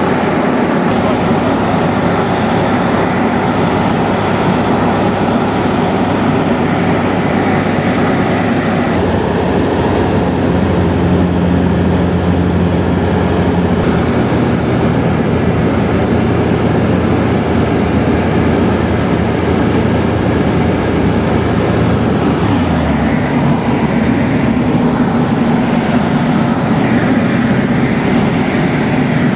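Pioneer 200 light aircraft's piston engine and propeller droning steadily, heard from inside the cockpit. About three quarters of the way through, the engine note drops in pitch as power comes back on final approach to a grass runway.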